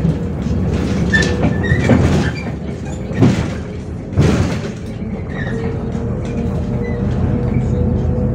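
Cabin noise of a MAZ 105 articulated city bus on the move: a steady engine and road rumble with a faint steady whine. Several brief whooshes of passing cars rise over it, the loudest about three and four seconds in.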